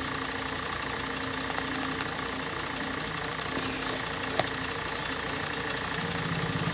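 Steady engine-like background hum, with a few faint clicks as a plastic wiring connector is handled and plugged in.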